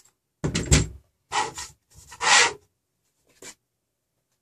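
Partly assembled 3D-printer frame of threaded steel rods and a wooden bed being turned over and set down on a table: a knock, then two rubbing, scraping sounds within the first two and a half seconds, and a faint tick near the end.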